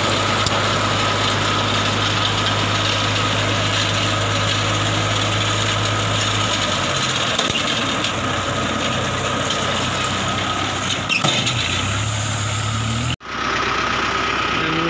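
Engine running steadily while a round paddy-straw baler works; the engine's low note drops about halfway through. Near the end the sound breaks off for an instant, then the running carries on.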